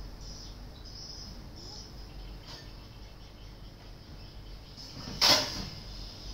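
Steady high-pitched chirring of insects like crickets, with one short loud sound about five seconds in.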